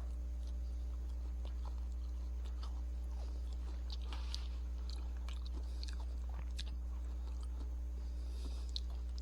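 Faint biting and chewing on a hard, frozen ice cream bar with a crumbly coating, heard as scattered small crunches and clicks, mostly in the middle. A steady low electrical hum runs underneath.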